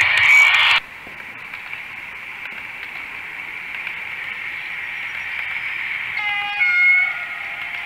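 HO-scale model train passing close by with a loud whirring rush that cuts off abruptly under a second in, followed by the quieter steady running whir of a model train on the track that slowly grows louder. About six seconds in, a short high pitched call sounds over it.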